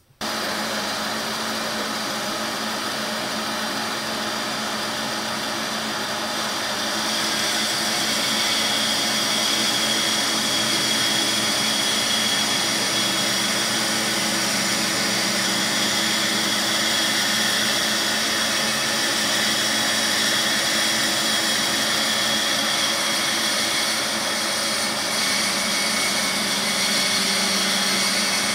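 Laguna woodworking bandsaw running and cutting a curve through a wooden blank, a steady machine hum with the hiss of the blade in the wood. It gets a little louder about seven seconds in and then holds.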